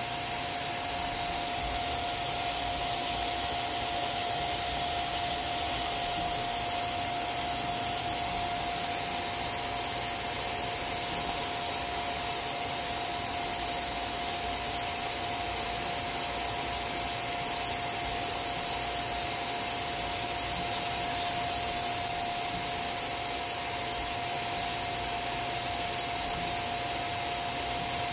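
Small vacuum cleaner running steadily with a high whine, sucking dust out of a sewing machine's feed dogs.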